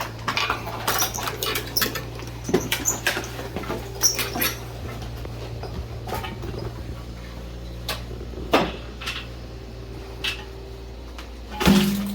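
Scattered knocks, clicks and rustles of things being moved and handled, over a steady low hum. A louder knock with a short ring comes near the end.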